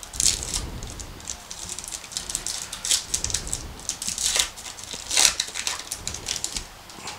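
Trading-card pack wrapper crinkling and tearing as it is peeled open by hand: a string of sharp crackles, loudest about five seconds in.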